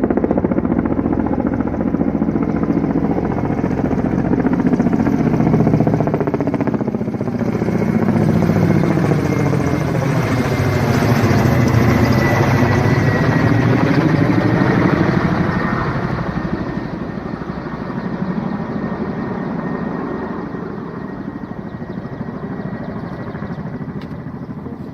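Helicopter rotor chopping steadily as the helicopter passes, loudest about halfway through and then fading away toward the end.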